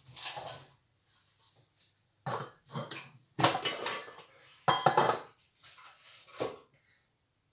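Kitchenware being handled: a series of sharp clanks and clinks of pots, dishes and utensils starting about two seconds in, loudest around the middle. A metal pot is set down on a glass-ceramic hob.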